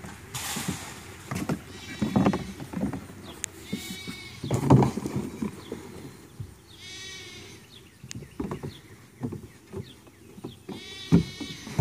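Two-week-old mini goat kids bleating: four high, wavering cries spread across the few seconds. Between the calls come short knocks and thumps of small hooves on the plastic slides and wooden spool, the heaviest just before halfway.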